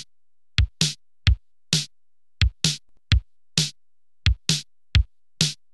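Electronic drum beat with no other instruments: a deep kick drum and a snare hit alternating in a steady pattern, about two hits a second, with silence between the hits.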